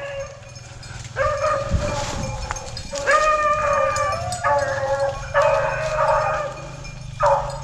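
Rabbit hounds baying on a rabbit's scent track: a run of long, drawn-out bawls, one after another with short gaps.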